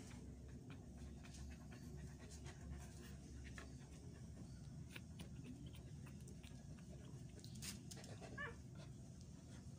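Faint sounds from a day-old cocker–chow mix puppy: scattered small clicks and a short, high squeak near the end, over low steady background noise.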